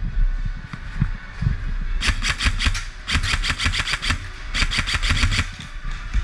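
Airsoft gun firing three full-auto bursts, each under a second long, of about ten rapid shots a second, the first about two seconds in. Low thumps and knocks of movement and gear run underneath.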